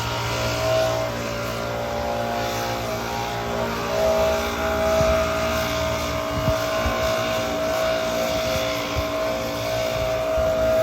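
An engine running steadily with a high, even whine over it, getting a little louder about four seconds in.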